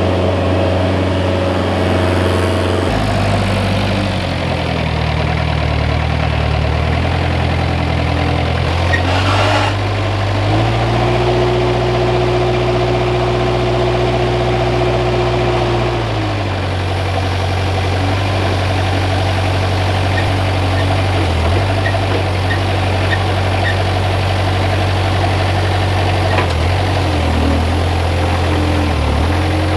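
Moffett truck-mounted forklift's engine running, revving up and holding a higher pitch for about five seconds in the middle as it works, then dropping back to a steady run.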